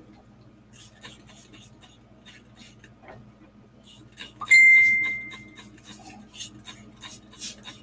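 Light clicks and taps of small objects being handled on a workbench, with a single bright ding about halfway through, a clear ringing tone that fades away over about a second.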